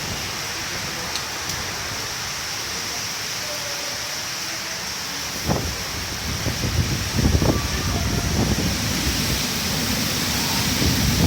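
Steady rain during a storm, falling as an even hiss. From about halfway through, gusts of wind buffet the microphone with low rumbling blasts that grow stronger.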